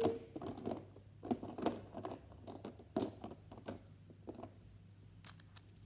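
Small plastic fidget toys being handled and set down: scattered light clicks and taps at irregular intervals, with a few quick rattles near the end.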